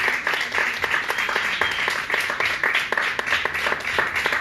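A small audience applauding: many hands clapping at once in a dense, steady patter.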